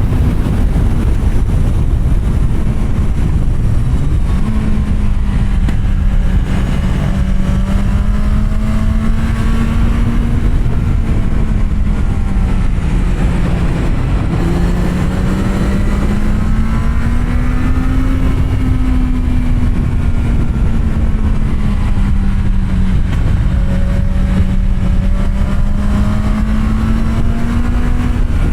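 Kawasaki Z750R's inline-four engine with an SC-Project exhaust, ridden at steady moderate revs, its note slowly rising and falling with the throttle. There is a quick drop and jump in pitch about four seconds in, over wind rushing on the microphone.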